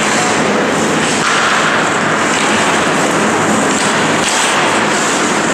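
Loud, steady noise of an indoor ice rink during play, with no distinct hits or calls standing out.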